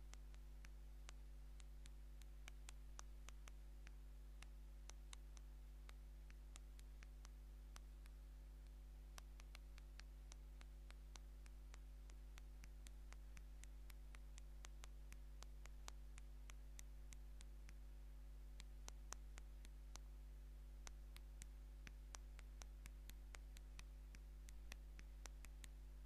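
Fingernails tapping on the touch screen of an LG phone while texting: faint, light clicks in irregular quick runs of several a second, over a steady low hum.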